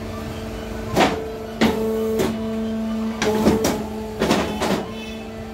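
Horizon APC-T61 hydraulic paper cutter running with a steady hum that swells twice, punctuated by about eight sharp knocks and clunks as the machine is worked.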